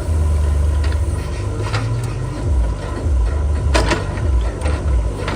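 Heavy diesel machinery engine running with a deep rumble that turns into an uneven throb partway through, with a few sharp knocks, the loudest about two-thirds of the way in.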